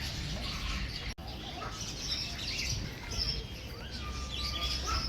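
Zoo birds chirping and calling, a busy mix of short chirps and brief whistled notes, with the sound cutting out for an instant about a second in.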